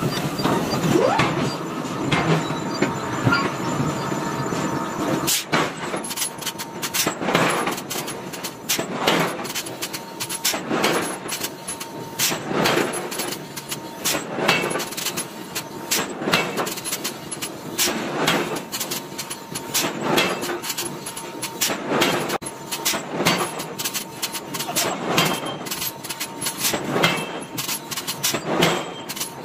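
Forging hammer striking a red-hot steel billet on the anvil, upsetting it flat. After a few seconds the heavy blows come every second or two, sometimes in pairs, over a steady machine whine.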